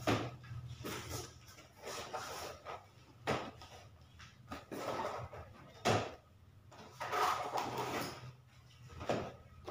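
Small cardboard boxes being lifted out of a large cardboard carton and set down on a stack: irregular knocks of box on box and short rustles and scrapes of cardboard, several times.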